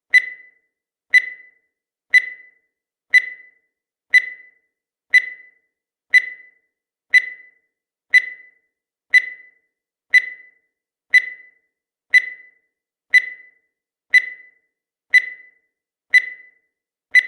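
Countdown timer sound effect: a short, high beep once a second, each one dying away quickly.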